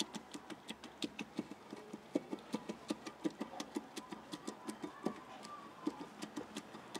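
Hand-held stone rocked and ground over tomatoes and chilies on a flat stone slab, knocking against the slab in a steady rhythm of about three knocks a second, each a dull thud with a sharp click.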